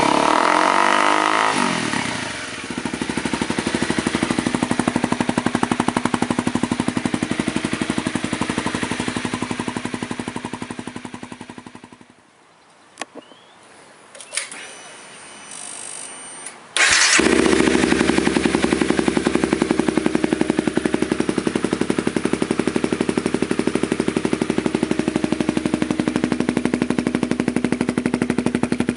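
Honda CBR250R's single-cylinder engine blipped and settling to a steady idle, dying away about twelve seconds in. After a few clicks and a faint high whine it is running again abruptly about five seconds later, idling steadily.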